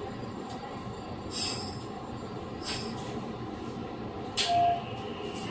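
Running sound inside a JR 115 series 6000 subseries electric multiple unit: a steady rumble of wheels on rail. Short hisses come about a second and a half in, near three seconds, and just past four seconds, the last with a brief high squeal.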